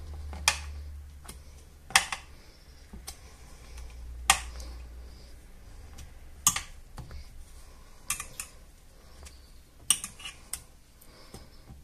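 Metal kitchen tongs clicking and tapping against a glass baking dish as soaked bread slices are turned over in milk: a string of sharp, separate clicks at irregular intervals.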